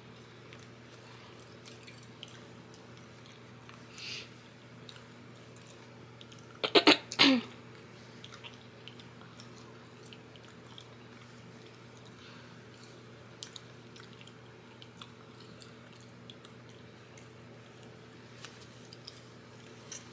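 Soft fabric rustling and small handling sounds as a headscarf and satin bonnet are tied on, over a steady low hum. About seven seconds in, a person gives one loud, sudden cough-like burst: a few sharp bursts, then a longer one that falls in pitch.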